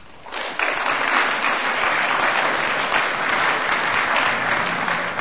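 Audience applauding. It starts a moment in, swells quickly to full level and stays steady.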